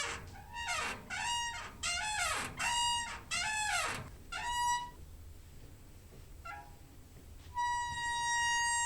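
Door hinge squeaking: a quick run of short squeaks that bend up and down in pitch, a pause, then one long steady squeak starting near the end.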